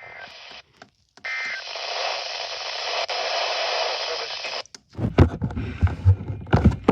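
Static hiss from a weather radio receiver between alert messages, cut by a brief dropout and a short tone blip near the start. Then a run of loud knocks and thumps in the last two seconds.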